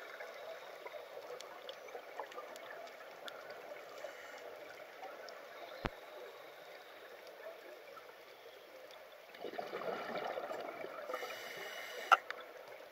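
Underwater ambience on a scuba dive: a steady crackle and hiss of water. About nine and a half seconds in comes a louder rush of bubbling, lasting about a second and a half, from a diver's regulator exhaling. There is a sharp click near the middle and another near the end.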